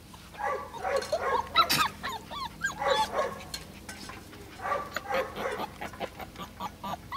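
Puppies yipping and whining as they play-fight, a string of short, high, squeaky calls that come in two spells.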